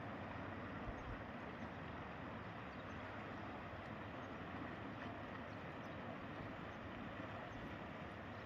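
Faint, steady outdoor rushing noise with no distinct events, and a couple of small low thumps about a second in.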